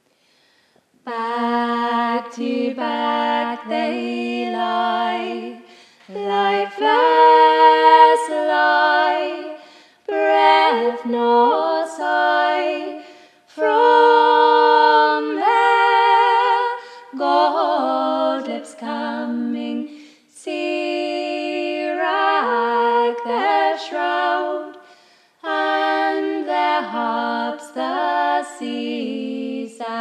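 Two women singing a traditional Hebridean folk song a cappella in two-part harmony, in sung phrases of a few seconds with short breaths between. The singing begins about a second in, after a brief pause.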